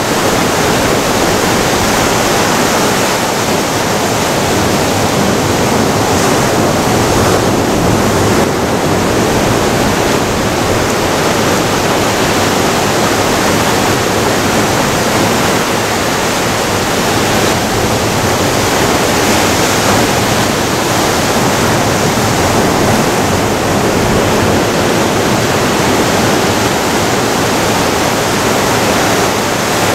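Ocean surf breaking and washing among rocks on the shore: a loud, steady rush of water with no letup.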